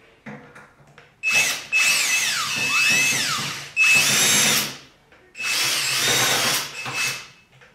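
Cordless drill-driver backing screws out of the washer's bottom panel in several runs of a second or so, its motor whine rising and falling in pitch as the trigger is squeezed and eased.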